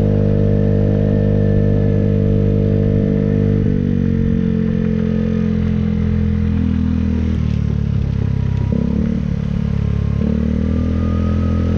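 Engine of a small vehicle running steadily while driving. Its pitch drops about four seconds in, then shifts again twice near the end as the throttle changes.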